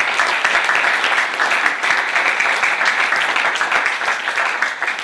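Audience applauding, a dense clapping that begins to fade near the end.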